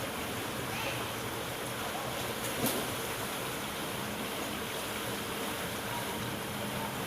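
Steady rushing, splashing water noise of a public swimming pool, with one brief sharp click about two and a half seconds in.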